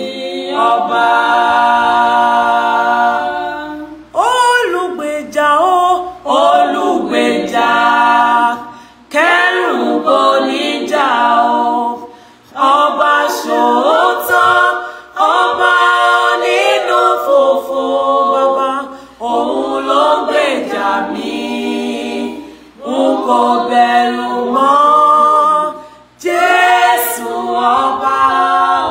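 A cappella gospel singing: a woman's lead voice with a small group of voices singing along and no instruments, in phrases a couple of seconds long with short breaks between them.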